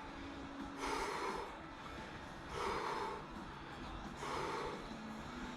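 A person breathing out hard in time with dumbbell shoulder presses: three forceful breaths about a second and a half apart.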